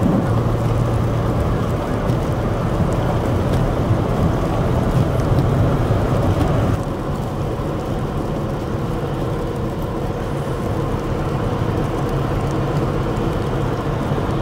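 Steady road noise heard inside a moving car: low engine hum and tyre rumble on a snow-covered highway. About seven seconds in, the noise drops a little and turns duller.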